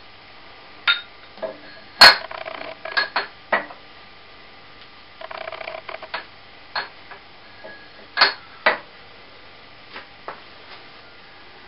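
Metal workpiece being handled on a shaper's table: a dozen irregular clinks and knocks of metal on metal as the bar is lifted and set into its fixture, the loudest about two seconds in, with two short scrapes of metal sliding on metal.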